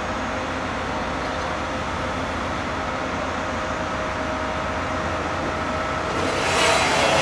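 Speno rail grinding train running slowly toward the listener, its engine droning steadily. About six seconds in, the noise grows louder and hissier as it draws near.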